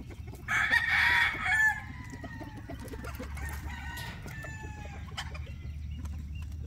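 Roosters crowing: one loud crow starts about half a second in and trails off over a couple of seconds, followed by fainter crows a few seconds in.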